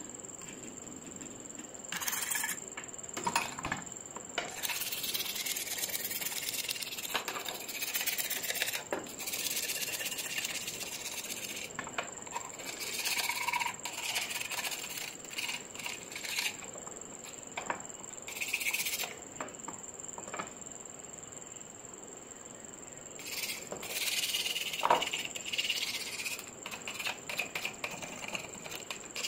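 Hand work on metal parts at a bench vise: irregular scraping and rubbing strokes with a few light metallic clicks.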